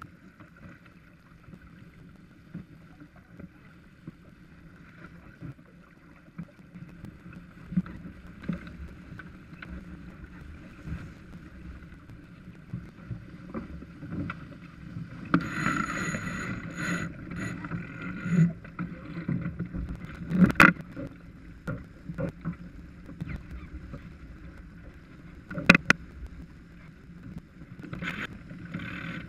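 Water rushing along the hull of a Farr 280 sportsboat under sail, with a steady hiss of wind and spray. About halfway it grows louder, with clattering from deck gear and several sharp knocks as the crew handles lines.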